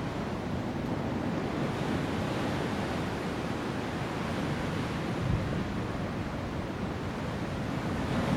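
A person snoring, with rough, noisy breaths that swell and fade gently and no clear tone. A brief low thump about five seconds in.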